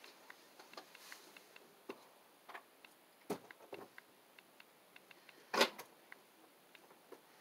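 Faint scattered clicks and taps, with a louder brief scrape a little over three seconds in and the loudest, a short rustle or knock, about two seconds later.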